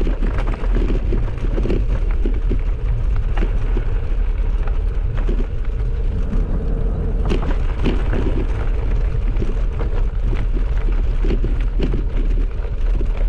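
Bicycle riding over a gravel track: a steady low wind rumble on the microphone, with irregular clicks and rattles from the tyres and bike on the loose surface.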